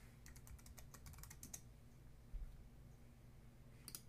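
Faint computer keyboard typing: a quick run of about a dozen keystrokes in the first second and a half, then a single click near the end.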